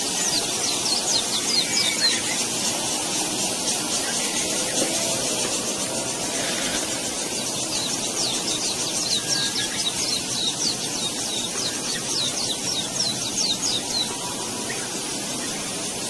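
Weaver bird chattering: fast series of short, high, downward-sweeping notes in two bouts, the first near the start and a longer one from about halfway, over a steady hiss.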